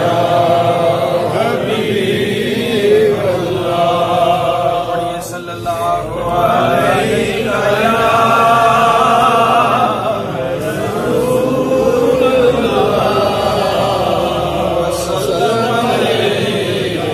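A man chanting a naat, devotional poetry in praise of the Prophet, unaccompanied into a microphone, in long wavering held notes. There is a short pause for breath about five seconds in.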